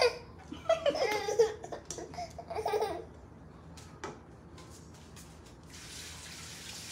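Toddler vocalising with short, high-pitched sounds through the first three seconds, then mostly quiet apart from a few light clicks.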